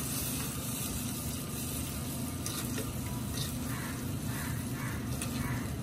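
Green chillies and herbs sizzling in a small pan of hot liquid for the dhokla tempering, a steady hiss, while a steel spoon stirs them.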